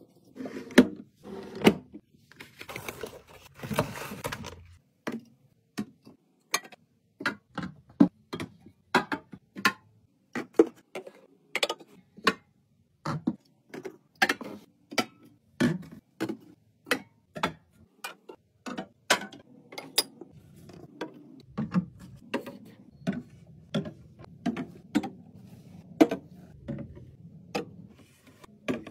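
Items being set down one by one into a mini fridge during a restock: a steady run of sharp clinks and knocks, roughly one to two a second, with a stretch of rustling about three seconds in.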